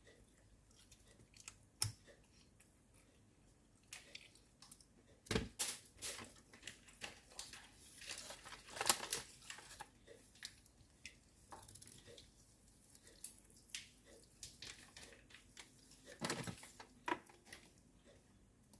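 Close-up eating sounds of a person chewing and tearing into chicken: scattered sharp crunches and clicks, with louder bursts about five, nine and sixteen seconds in.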